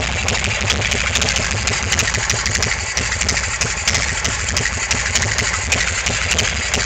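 1999 Ultra custom chopper's air-cooled V-twin engine idling steadily, a loud, even low rumble with a light clatter on top.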